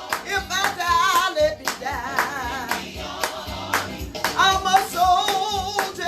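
A song: singing with heavy vibrato over instruments and a steady percussive beat.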